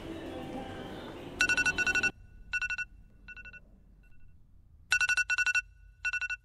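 Smartphone alarm going off: a bright, rapidly trilling electronic tone in short repeated bursts with gaps, some bursts fainter than others. Before it starts, about a second of busy station crowd noise, which cuts off as the alarm begins.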